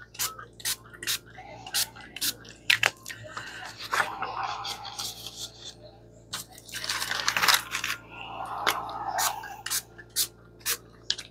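Repeated light taps and clicks as the tip of a small alcohol-dye bottle is dabbed onto paper pages. Paper rustles twice in between.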